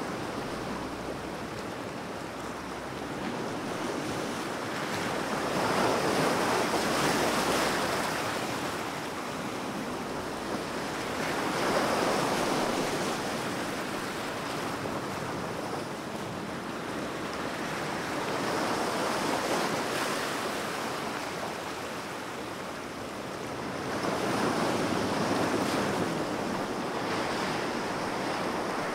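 Ocean surf washing in and out, swelling and easing about every six seconds.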